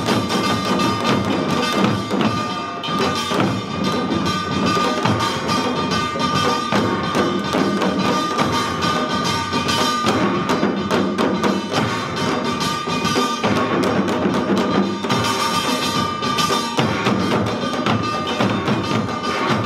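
Samul nori percussion ensemble playing a fast, driving rhythm: many janggu hourglass drums struck in rapid strokes under the steady ringing clang of small brass gongs (kkwaenggwari).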